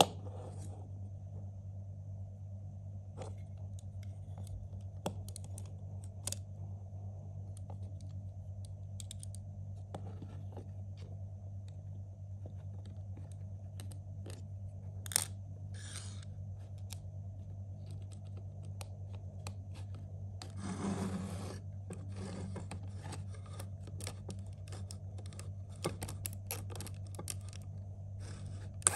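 LEGO Technic plastic parts being handled and pressed together: scattered small clicks and snaps, one louder about halfway, a short scrape about two-thirds through and a quick run of clicks near the end, over a steady low hum.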